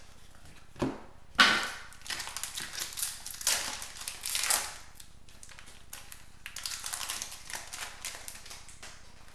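Crinkling and rustling of a trading-card pack wrapper being torn open and handled, mixed with cards being flipped through, in irregular crackly spells with a sharp crackle about a second and a half in.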